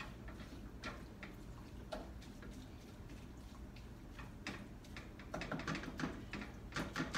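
Wooden spatula stirring ground meat in a metal frying pan, scraping and tapping against the pan in scattered light clicks that get busier over the last two seconds.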